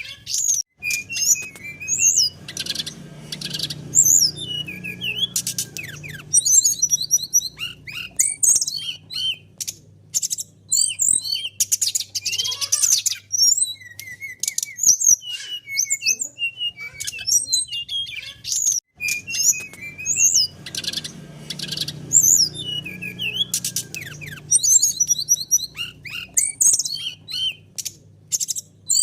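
Sikatan rimba dada coklat (brown-chested jungle flycatcher) singing: a dense run of quick, varied chirps and short whistled slurs, with more than one bird calling back and forth.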